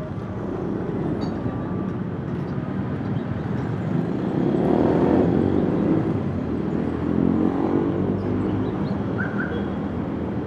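A motor vehicle passing on the street, its engine growing louder to a peak about halfway through and then fading, over a steady bed of city street noise.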